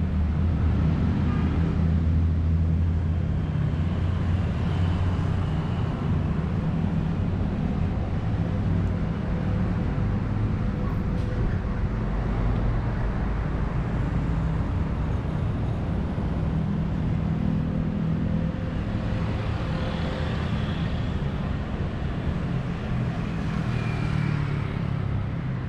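Road traffic on a city street: a steady low rumble of passing cars and other vehicles, with a few vehicles briefly rising and fading as they pass.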